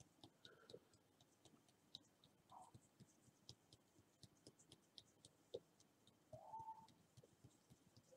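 Near silence: room tone with faint scattered light ticks and two faint, short, whistle-like rising tones.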